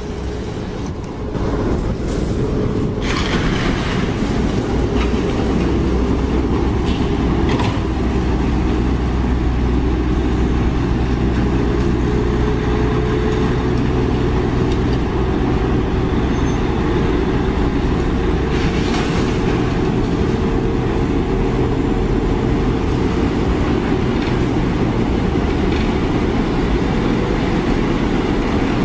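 Steady deep rumble of heavy vehicles, a little louder from about a second and a half in, with a few faint clicks.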